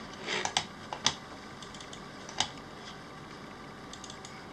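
Sharp plastic clicks of a wireless mouse and keyboard being used at a computer: a quick cluster in the first second, another click about two and a half seconds in, then a few faint ticks.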